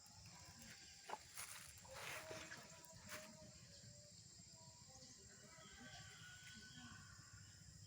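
Near silence: faint background ambience with a thin steady high tone and a few soft clicks about one to three seconds in.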